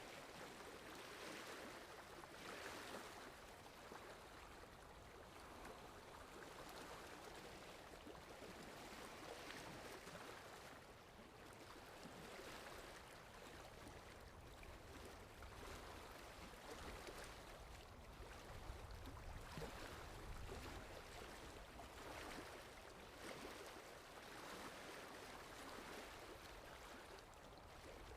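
Faint sea waves washing in, the noise swelling and fading every few seconds, with a deeper rumble for a while around the middle.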